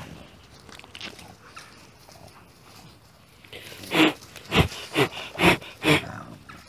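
A dog barking five times in quick succession, starting about four seconds in, after a quiet stretch.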